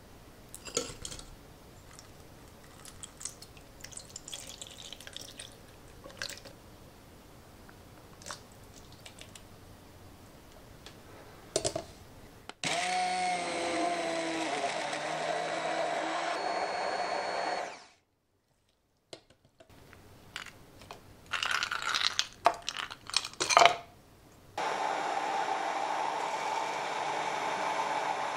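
Soft taps and clinks as ingredients go into a plastic beaker, then a handheld immersion blender runs in it, blending an acai smoothie. It runs steadily for about five seconds, its pitch settling as it starts. After a pause there is a spell of loud crunching and knocking against the beaker, and the blender runs steadily again near the end.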